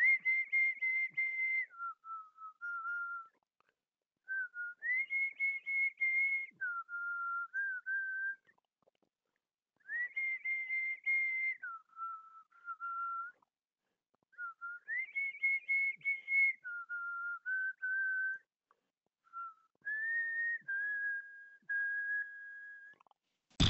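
A person whistling a short tune. A held high note slides down to lower notes, and the phrase repeats about four times with pauses between, ending on a held lower note.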